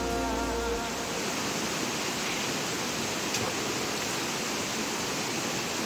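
Steady rush of running water, with one light knock about three and a half seconds in.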